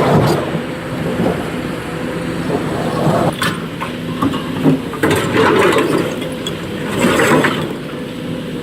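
SANY SY225 excavator's diesel engine running steadily under load, with three short bursts of rock and bucket clatter: about a third of the way in, just past halfway and near the end.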